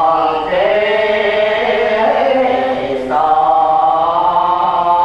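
Buddhist devotional chanting: long held notes that step up and down in pitch, with short breaks between phrases.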